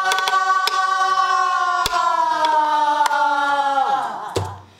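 A woman sings in pansori style, holding one long vowel that sags slowly in pitch, then bends sharply down and ends about four seconds in. Sharp strokes of the buk barrel drum's stick punctuate the note, and a low drum thump comes just after it stops.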